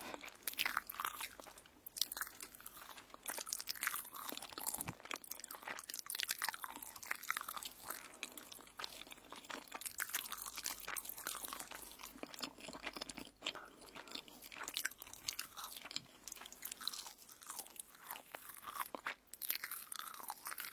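Crisp toast being bitten and chewed close to the microphone, a steady run of crunches and crackles.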